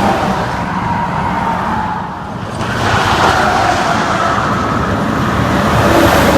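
Highway traffic going by close at hand: steady tyre and engine noise from passing vehicles. It dips about two seconds in, then builds again as another vehicle approaches and passes.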